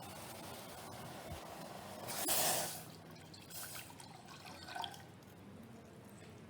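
Milk being poured into a pan of simmering masala chai. The liquid hisses and splashes, loudest in a short splashing pour about two seconds in, then settles to a few small liquid sounds.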